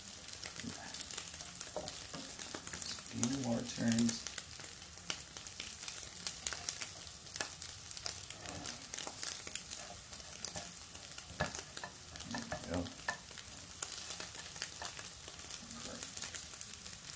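Scrambled eggs sizzling in a copper-coloured ceramic nonstick frying pan on a gas burner: a steady hiss with frequent small crackles, as a plastic spatula stirs and pushes the eggs, tapping and scraping the pan.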